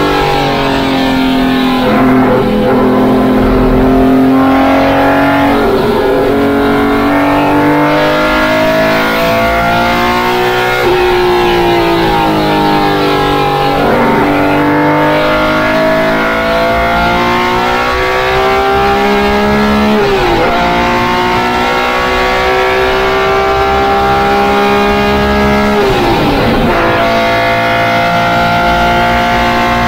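BMW M1 race car's straight-six engine under hard load, heard inside the cockpit at racing speed. Its pitch climbs in long runs through the gears, with sharp drops at upshifts about twenty and twenty-six seconds in and shorter dips earlier.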